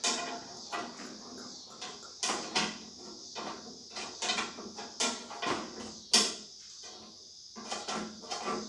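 Irregular mechanical clicks and knocks as the tractor's key and controls are worked. The starter does not crank and the engine makes no sound, a sign of no power reaching the starter from the battery, or a failed starter.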